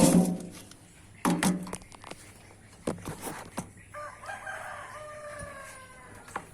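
A rooster crows once, a single long call of about two seconds starting around four seconds in. Before it come a few loud knocks and bumps.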